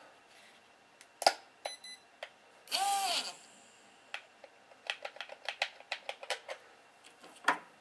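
Plastic clicking from a Hubsan H107L mini-quadcopter's handheld transmitter as its sticks and buttons are worked, with a short electronic beep about two seconds in. A quick run of about a dozen clicks follows from about five to six and a half seconds in.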